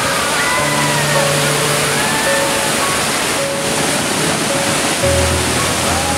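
Steady rush of a river's white-water rapids, with background music over it: held notes throughout and a deep bass note coming in about five seconds in.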